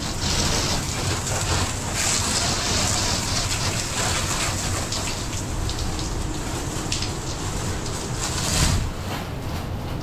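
Heavy rain falling steadily on the yacht, a dense hiss with louder surges about two seconds in and again near the end.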